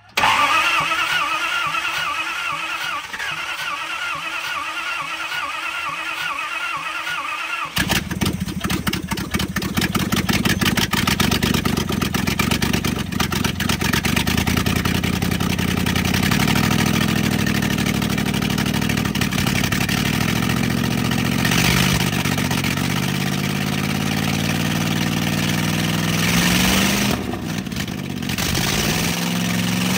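1970 Dodge D300 wrecker's engine cranked by the starter for about eight seconds, then catching and running, its revs rising and falling as the throttle is worked by hand at the carburetor. It is a first start after long sitting, fed by gasoline poured into the carburetor and a shot of starting fluid, with one exhaust manifold off.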